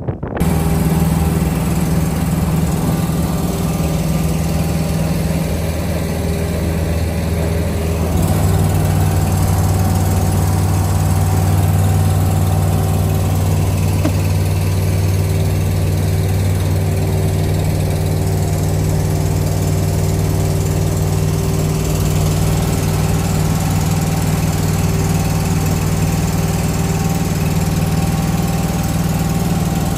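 Cable ferry's engine running steadily through the crossing. It grows a little louder and deeper about eight seconds in.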